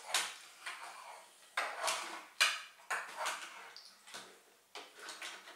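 Hard plastic toys, an action figure and a toy motorbike, clacking and knocking against each other and a wooden tabletop as they are handled: about seven irregular sharp clacks.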